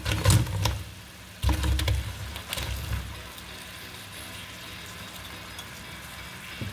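Fried chicken pieces dropping into a pan of hot, bubbling teriyaki sauce. There are two bursts of knocks and sizzling in the first three seconds as the pieces land, then the sauce sizzles steadily.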